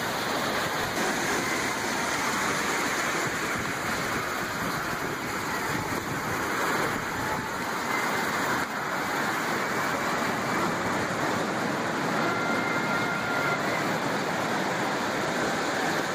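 Ocean surf on the shore, a steady rushing wash of waves with no break in it.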